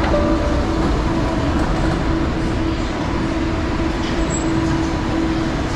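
Steady low rumble of a moving vehicle, with a faint humming tone over it.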